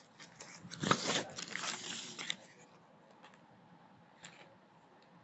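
Paper crinkling and rustling as a folded paper bag is opened and a crumpled ball of lined notebook paper is handled: a burst of crackly crinkling lasting about a second and a half, then a few faint crackles.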